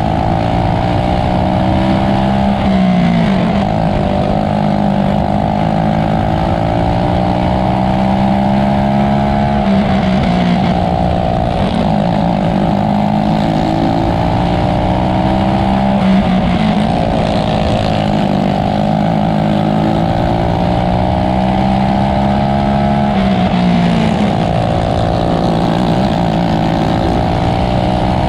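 Winged outlaw racing kart's engine heard from on board, running hard at high revs around a dirt oval. Its pitch drops briefly every few seconds as the throttle is lifted for the turns, then climbs again as it accelerates down the straights.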